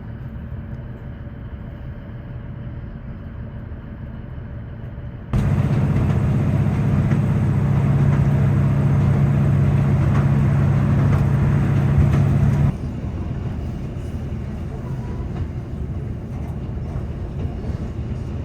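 Diesel train running along the line: a steady rumble of wheels and engine. A little over five seconds in it jumps to a louder section with a steady low engine drone, then drops back to the quieter rumble after about seven seconds.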